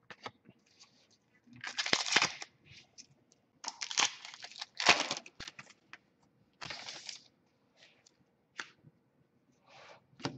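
Hockey card pack wrappers being torn open and crinkled, in several short noisy bursts about two seconds apart, with light clicks of cards being handled in between.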